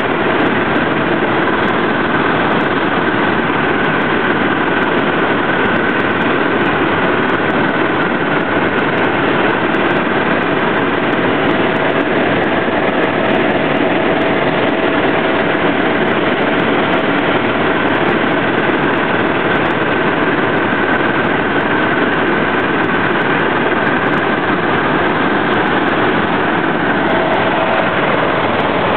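Helicopter in flight: a loud, steady engine and rotor drone with a thin, steady whine running through it.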